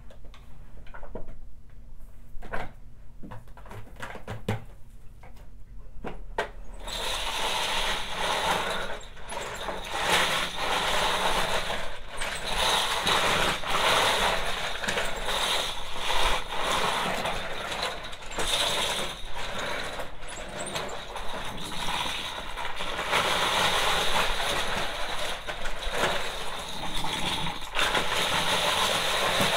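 Loose plastic bottle caps clicking and clattering on a shag rug, then about seven seconds in an upright vacuum cleaner switches on and sucks up the caps with a steady motor noise and a constant rattle of caps striking the nozzle and being drawn up.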